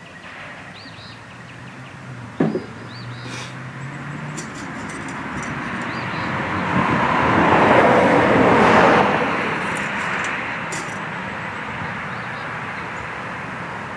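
A passing vehicle: steady road noise that swells to a peak about eight seconds in, then eases off. A short knock comes about two and a half seconds in.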